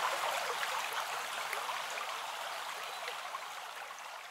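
Water rushing, like a small stream, with a steady hiss that fades out slowly.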